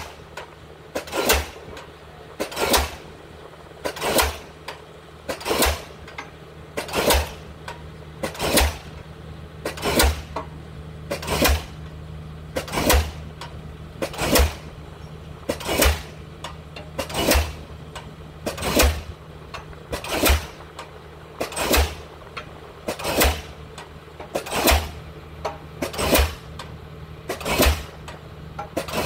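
Diesel pile hammer driving a pile at a steady pace, a sharp bang about every one and a half seconds, over the steady hum of the Kobelco 7080 crawler crane's engine.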